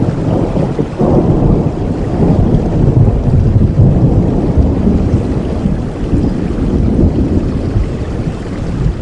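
A deep rumble of thunder over heavy rain. It swells suddenly about a second in, rolls on for several seconds and eases off near the end.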